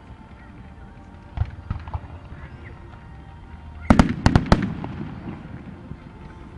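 Fireworks bursting: a single bang about a second and a half in, then a quick run of four or five loud bangs about four seconds in as aerial shells go off, over a steady low rumble of the display.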